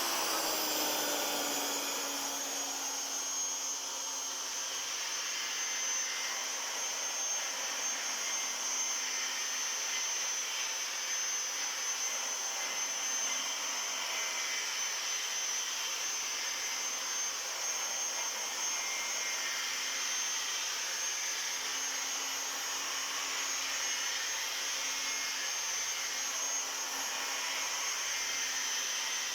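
A power tool runs steadily with an abrasive grinding the inner friction surface of a brake drum, smoothing it to cure a drum brake's noise. It starts suddenly, its hum dips slightly in pitch in the first couple of seconds, then runs on as an even hiss with a high whine.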